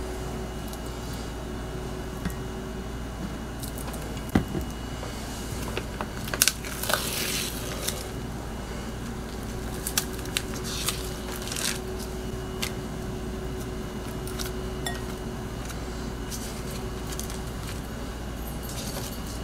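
Food prep at a kitchen counter: scattered clicks and knocks as things are handled around a glass bowl, with a rustle about seven seconds in, over a steady faint hum.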